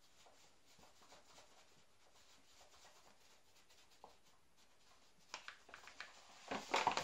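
Sifted wheat flour pouring from a paper bag into a plastic mixing bowl: a faint soft hiss with small ticks. Near the end the paper flour bag rustles and crinkles, much louder, as it is handled.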